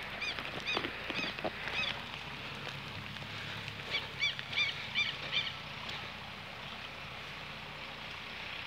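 Steady hiss of rain falling on the water and grass, with two runs of short high-pitched chirps at about three a second, in the first two seconds and again from about four to five seconds in.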